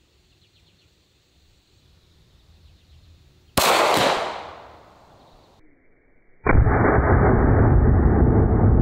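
A single 9mm shot from a Glock 19 pistol about three and a half seconds in, sharp and dying away over about two seconds. A couple of seconds later a loud steady rushing noise takes over.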